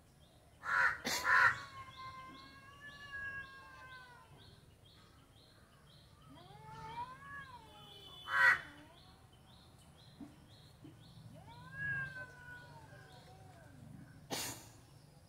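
Kitten meowing: three long, drawn-out meows that rise and fall. A few short, loud, harsh calls cut in between them, about a second in, near the middle and near the end.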